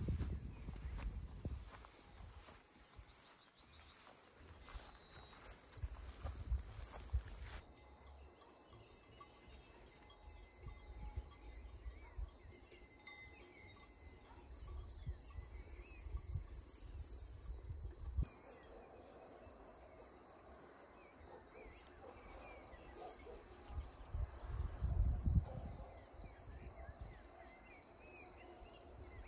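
Insects chirping in a steady, high, finely pulsing trill, with a few low rumbles underneath, the loudest near the end.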